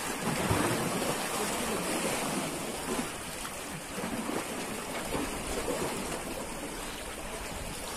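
Steady wash of sea water against the shore with wind buffeting the microphone.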